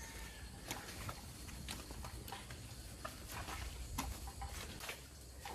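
Elephants plodding along a muddy trail: scattered soft clicks and thuds, a few a second at an uneven pace, over a steady low rumble.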